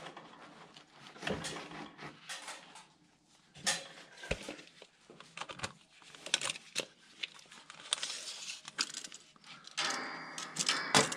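Scattered knocks, clicks and light clatter of tools and parts being handled during work on attic stairs, busier near the end.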